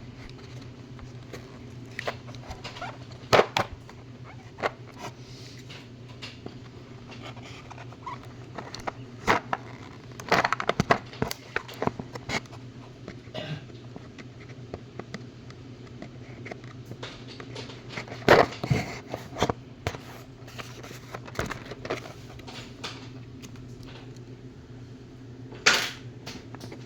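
Hard plastic packaging and tool cases being handled and opened: scattered sharp clicks, snaps and knocks, in small clusters, over a steady low hum.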